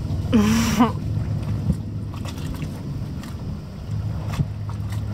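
A short wordless vocal sound near the start, then a steady low hum with a few light knocks.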